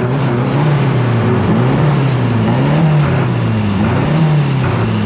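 Mini pulling tractor's engine running loudly, its pitch rising and falling a few times as it is revved.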